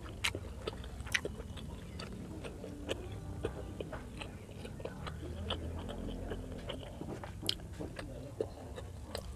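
Close-miked chewing of pork liver and rice, with many small, sharp, wet mouth clicks and smacks.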